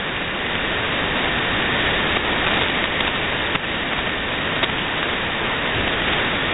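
Steady hiss of 20-meter band noise (static) from a shortwave software-defined radio receiver, with no voice coming through and a couple of faint clicks.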